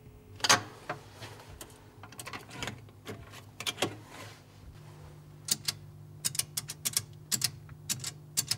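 Urmet public payphone in use: a loud click about half a second in and a few scattered clicks and knocks, then in the second half a quick run of sharp clicks as a number is keyed on its metal push-button keypad, over a low steady hum.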